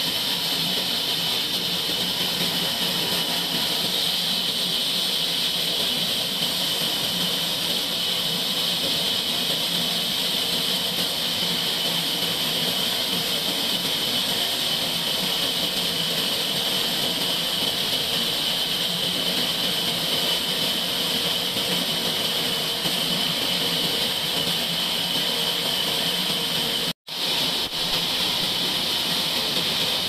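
Horizontal band sawmill running with its band blade cutting through a log: a steady high hiss over a motor hum. It cuts out for an instant once near the end and then carries on.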